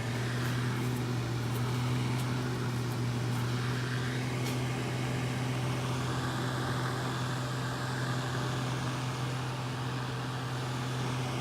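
Caterham Super Seven heater blower fan running at speed with a steady low hum and a rush of air, no rattle: the fan no longer catches on the heater radiator after the seal was replaced with rubber packing.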